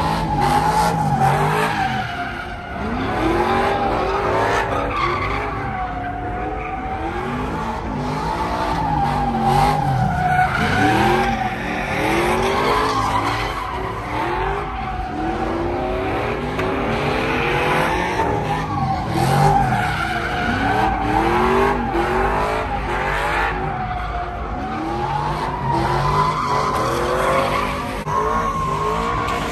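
Pickup truck doing a burnout in circles: its rear tires squeal in a continuous, wavering screech while the engine revs up again and again.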